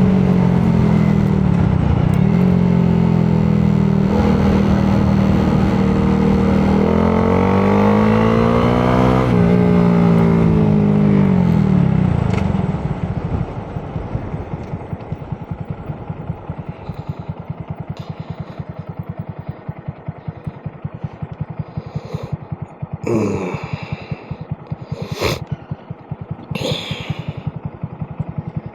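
Honda Grom's single-cylinder four-stroke engine revving up and down through the gears while riding, then settling to a steady idle about twelve seconds in. A few brief clattering noises come near the end.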